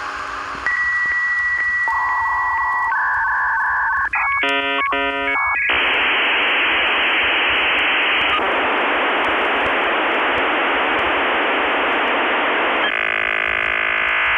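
Electronic telephone-line tones: a steady high beep, a lower tone, then a quick warble of changing tones, followed by a long steady hiss of static and a buzzing tone near the end, the pattern of a dial-up modem handshake.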